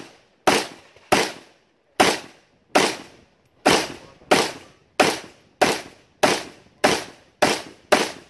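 A shooter's gunshots fired in steady succession, about a dozen, each sharp crack followed by a short echo, roughly one every 0.6 to 0.9 seconds.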